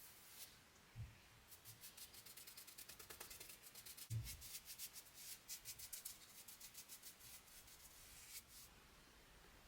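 Faint, quick back-and-forth rubbing strokes by hand on a wooden surface, several a second, with two soft knocks, one about a second in and one near the middle.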